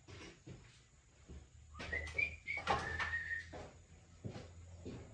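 Dogs barking, with a high whining, yelping note about two seconds in, amid a few light knocks and clatter.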